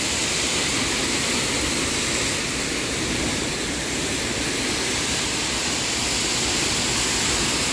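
Steady rushing noise of sea surf breaking against cliff rocks, mixed with wind, holding an even level with a low rumble underneath.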